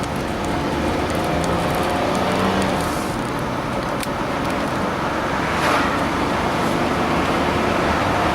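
An engine running steadily, a continuous drone with a constant low hum and a rushing noise over it.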